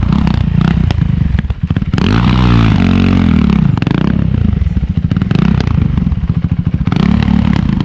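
Off-road race motorcycle engine running at low revs with a ragged, uneven beat, revved up and back down once about two seconds in. The bike is misfiring from a fuel-delivery fault.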